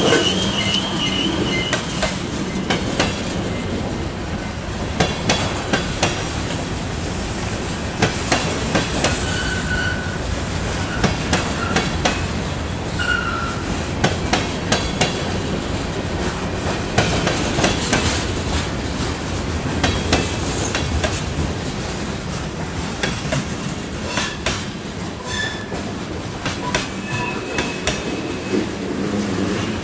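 Freight cars of a long mixed manifest train rolling past at close range: a steady rumble of steel wheels on rail, broken every few seconds by clusters of clacks as the wheel sets cross rail joints. A few brief high wheel squeals come through now and then, around ten and thirteen seconds in and again near the end.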